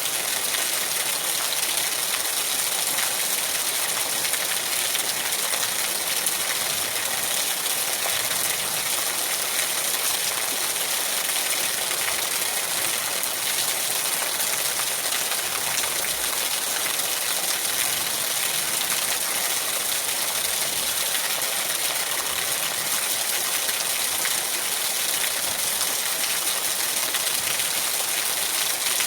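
Steady rain falling: an even, unbroken hiss, strongest in the high range, with no single drops or thunder standing out.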